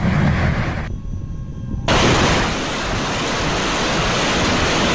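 Multi-barrel rocket launchers firing a salvo: a continuous rushing roar with a low rumble. It thins out about a second in, then comes back suddenly and louder about two seconds in and holds steady.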